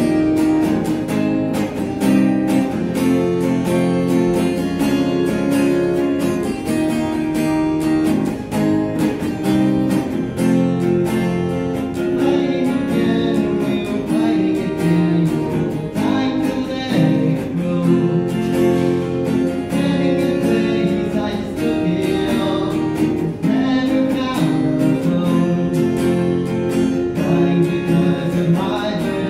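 Acoustic guitar played live, strummed chords in a continuous song accompaniment.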